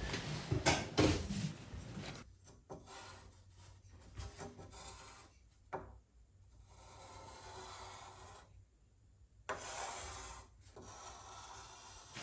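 A marking tool rubbing and scratching across a rusty steel sheet while a knife profile is drawn out, in uneven strokes with short pauses and one sharp click.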